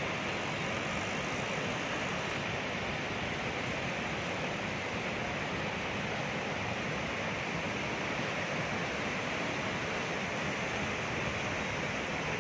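Steady rushing of the River Beas in monsoon flood, a fast, muddy torrent running high.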